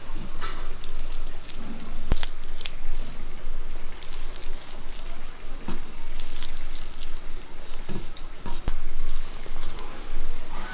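A hand squishing ripe bananas and rubbing them into grated coconut, jaggery and roasted rice flour in a pan: irregular squelching and crumbly rustling, with a couple of sharp clicks.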